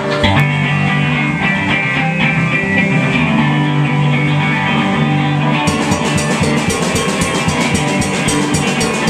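Live rock band playing an instrumental intro: two electric guitars strumming and picking over sustained low notes, with the drum kit and cymbals coming in about halfway through.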